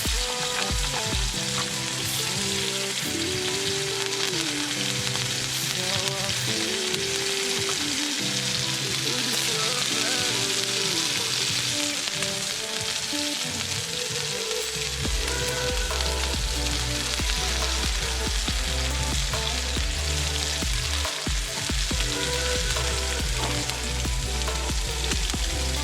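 Steak sizzling in a hot pan: a steady frying hiss. Background music plays under it, with a bass line coming in about halfway through.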